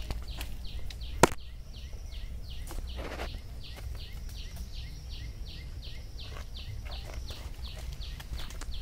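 A steady run of short high chirps, about three a second, from a small animal, over a low rumble of wind on the microphone. A single sharp click sounds just over a second in.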